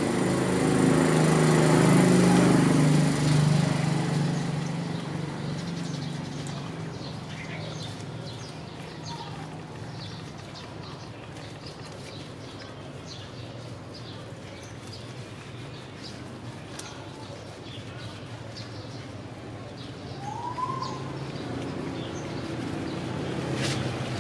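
A young monkey being washed by hand in shallow water: scattered small splashes and wet rubbing over a steady low hum, which is louder in the first few seconds and then fades. About 20 seconds in comes one short rising-and-falling chirp.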